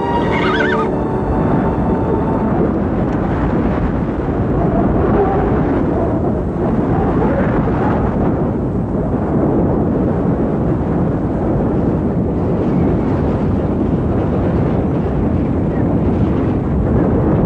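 Strong wind blowing loudly and steadily as a film sound effect, with a line of music fading out in the first couple of seconds.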